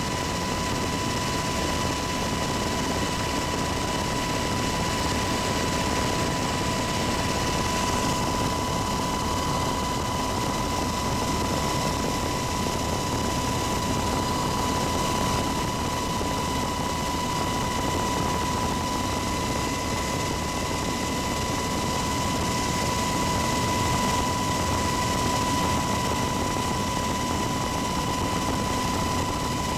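UH-60 Black Hawk helicopter in level flight, heard from inside the cabin: a constant engine and rotor noise with a steady high whine over it.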